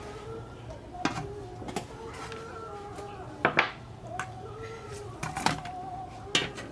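Aluminium basins and a metal colander clinking and knocking as raw fish pieces are handled, about eight sharp knocks, the loudest a little past the middle and near the end. Soft background music runs underneath.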